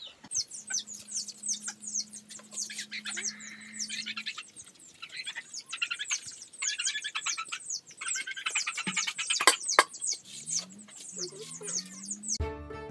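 Small birds chirping busily, many short high calls falling in pitch, one after another. Music comes in just before the end.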